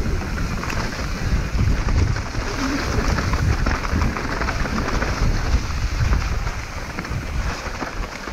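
Mountain bike ridden fast down a rough trail: tyres crunching over stones and the bike rattling, with wind rumbling on the microphone.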